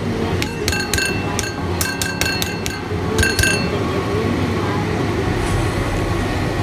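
An irregular run of about a dozen light, ringing clinks over about three seconds, each at the same bright pitch, over a steady low hum.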